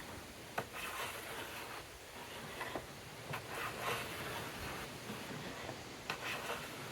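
Wood being handled and worked by hand on a bench: irregular scraping and rubbing, with two sharp knocks, one about half a second in and one near the end.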